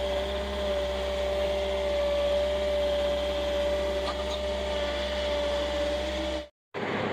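Skid steer loader running steadily under the operator, with a steady whine over the engine's low hum, heard from inside the cab. The sound breaks off for a moment near the end.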